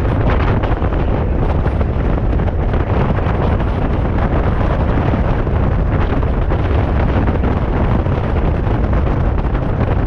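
Steady wind buffeting the microphone over the deep road rumble of a car driving at speed.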